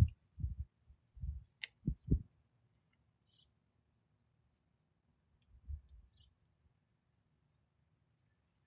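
Faint, scattered high chirps of small birds, with a few dull low thumps in the first couple of seconds and another near six seconds.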